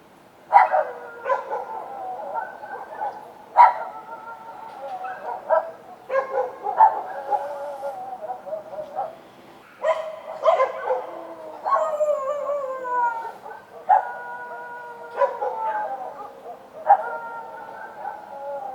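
Street dogs barking, with some calls drawn out into howls. There are repeated barks about every one to two seconds, and calls overlap in places, with falling pitch a little past the middle.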